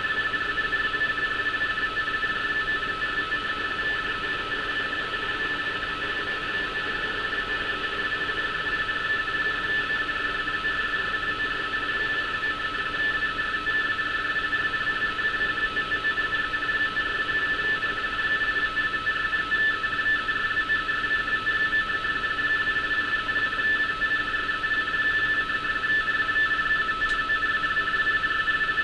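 Radioteletype (RTTY) signal from a Target/NASA Marine HF3 shortwave receiver: a steady two-tone warble that keys rapidly between two pitches close together, over radio hiss. It is a live teleprinter data transmission carrying maritime navigational warnings.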